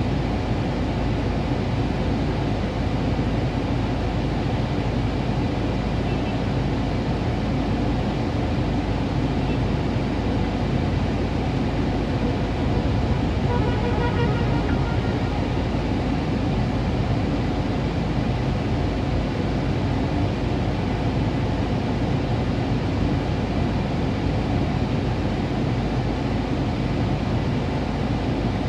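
Steady hum of a car idling in slow street traffic, heard inside the cabin through a dashboard phone. A short pitched sound rises above it about halfway through.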